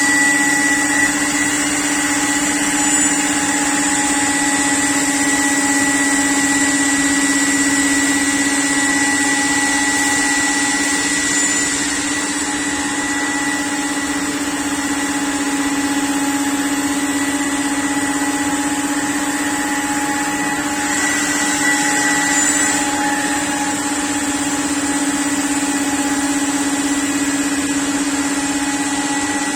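CNC panel-cutting router running steadily: a constant, even whine over a hiss, with no breaks.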